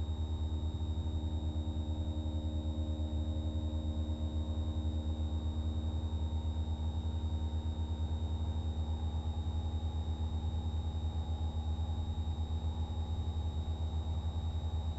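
Single-engine piston light aircraft's engine and propeller droning steadily in cruise power, heard inside the cockpit. A thin, steady high tone runs above the drone.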